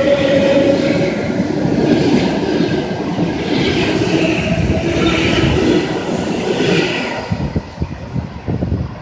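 ED4M electric multiple unit running close past along the platform: wheel rumble and clickety-clack over the rail joints with a steady motor hum. It fades after about seven seconds as the last car goes by, leaving a few separate clicks.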